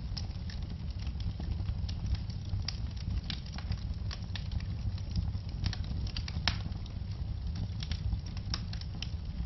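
Wood fire in a fireplace crackling, with irregular sharp pops and snaps over a steady low rumble of the flames; one louder pop about two-thirds of the way through.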